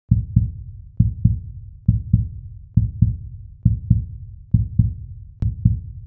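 Low, deep double thumps repeating like a heartbeat, about one pair every second, as an intro music sting. A sharp click comes just before the last pair.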